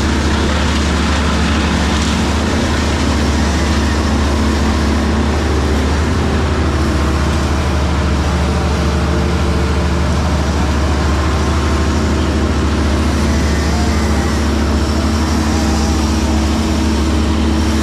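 Diesel engine of heavy equipment running steadily at constant speed, a loud continuous drone with a strong low hum.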